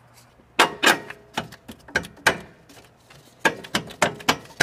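About a dozen irregular, sharp metallic clicks and knocks, a few ringing briefly. These are steel suspension parts and a bolt being knocked into line while an aftermarket rear lower control arm is fitted.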